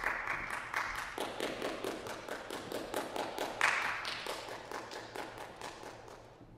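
Small audience applauding: scattered clapping that starts suddenly, swells again about three and a half seconds in, then gradually dies away.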